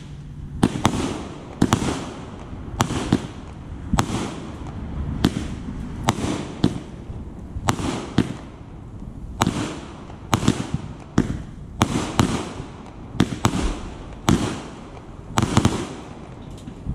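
Consumer aerial fireworks going off, a multi-shot cake firing shot after shot with sharp bangs about twice a second and a rumbling wash between them.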